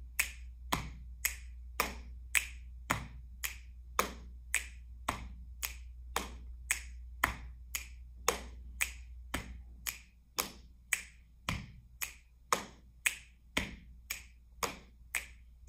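Body percussion: a repeating four-stroke pattern of a pat on the thighs, a finger snap, a hit on the chest and another finger snap, about two strokes a second, eight times round without a break. The snaps are sharp and bright; the pat and chest hit are duller thuds.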